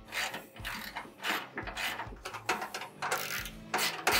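Hand ratchet clicking in repeated back-and-forth strokes, about two to three a second, as nuts are snugged down on the bolts of a steel cargo rack.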